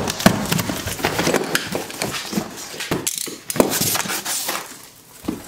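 A box cutter slicing through packing tape along a cardboard box's seams, then the cardboard flaps being pulled open with scraping, rustling and sharp clicks.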